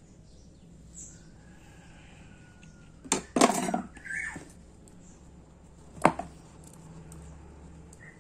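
A bird's loud squawk about three seconds in, followed by a short falling call. About six seconds in there is a single sharp click as the watch movement is handled.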